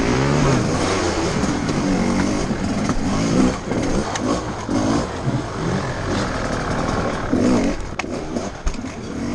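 GasGas enduro motorcycle engine revving up and down in repeated short throttle blips, heard up close from on the bike as it is ridden over log obstacles.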